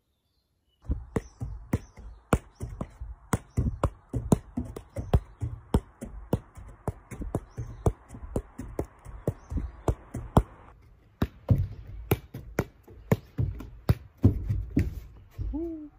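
A football being juggled: a quick run of sharp thumps as the ball is kicked up again and again off foot and knee, about two to three touches a second.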